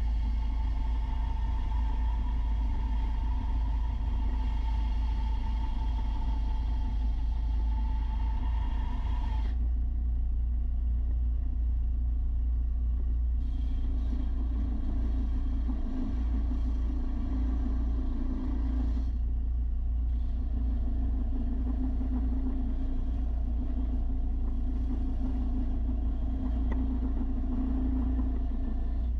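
Electric belt sander running with a deep rumble and a steady whine, used to sharpen steel mower blades on 300-grit paper; the sound changes abruptly about a third of the way in, when the whine stops, and shifts again twice later.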